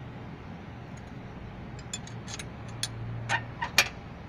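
A hand wrench working the alternator's 14 mm bolt loose: scattered sharp metal clicks and taps, coming more often in the second half, the loudest near the end.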